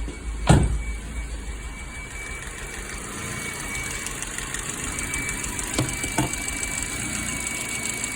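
2006 Ford Focus engine idling rough, with a thin steady high whistle over the running: a vacuum leak through a hole in the PCV hose. A sharp knock about half a second in, and two faint clicks near the end.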